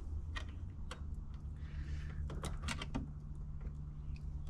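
Scattered small clicks, knocks and scrapes of stiff 6-gauge copper wire being bent and pushed into a 50 amp receptacle's terminals, over a steady low hum.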